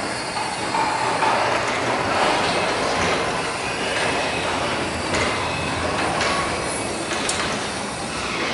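Lexus SC400 on the move with a wheel noise: a steady rushing, grinding sound with irregular clicks. It is an intermittent noise that has been getting worse, and the owner doubts it is a wheel bearing because the wheel feels stiff.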